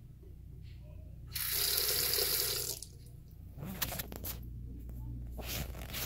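Bathroom sink faucet turned on briefly, water splashing into the porcelain basin for about a second and a half before it is shut off. A few light knocks follow.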